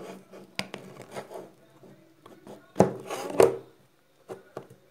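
Hands handling a small plastic slime tub and its plastic lid, with slime pressed into it: scattered clicks and rubbing, and two louder sharp sounds about half a second apart near the three-second mark.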